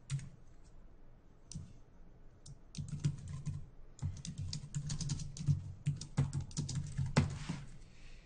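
Computer keyboard typing: a few scattered keystrokes, then a fast, dense run of typing from about three seconds in.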